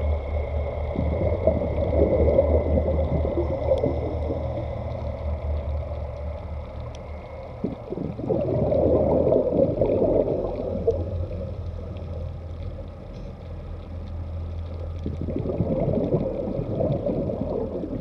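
Scuba diver's regulator breathing underwater: three long bursts of exhaled bubbles about seven seconds apart, over a steady low hum.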